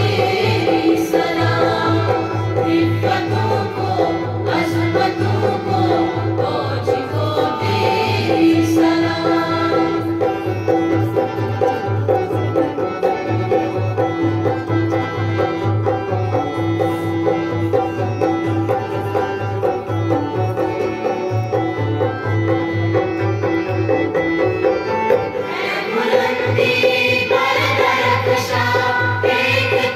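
A college anthem sung over instrumental backing with a steady pulsing beat; the voices come forward in stretches, most strongly near the end.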